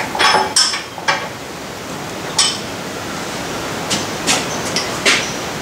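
Irregular sharp metallic clinks and knocks, about seven in all, of a spanner working the lathe's levelling bolts to raise one side of the bed, over a steady background hiss.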